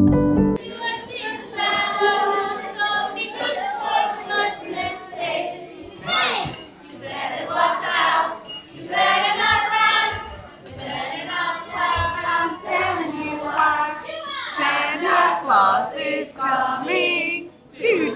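A Christmas song sung by a choir of voices with jingle bells ringing.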